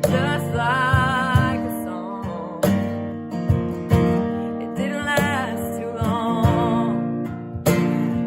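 A woman singing long, held notes with vibrato over a strummed acoustic guitar.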